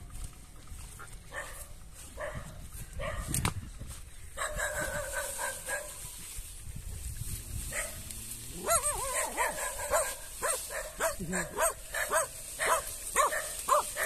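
A dog whining, then yelping and barking in quick short calls from about nine seconds in, over rustling foliage.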